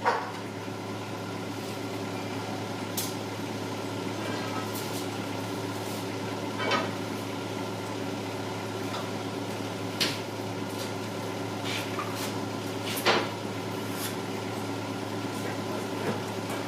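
An engine running steadily, with several sharp clanks and knocks during the work, the loudest about thirteen seconds in.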